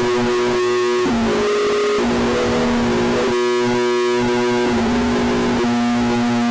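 Music: sustained synthesizer tones in a drone-like chord, the pitches stepping to new notes every second or so, as the soundtrack of an Emergency Alert System alarm recording.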